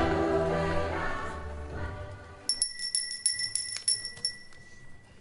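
Background music fading out, then a bright, tinkling bell-like chime: a quick run of about a dozen ringing strikes over two seconds, its ring held on after the strikes stop.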